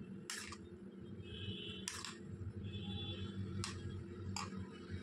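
Metal spoon stirring yogurt raita in a bowl, with about four short clinks and scrapes against the bowl's side and a soft wet stirring sound between them.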